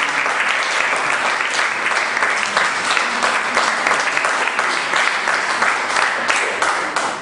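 Audience applauding, a dense steady clapping that begins to die away at the very end.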